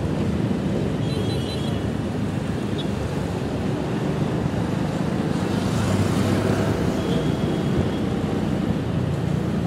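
Steady wind rumble on the microphone of a moving motorbike, mixed with road and traffic noise; a hiss swells briefly about six seconds in.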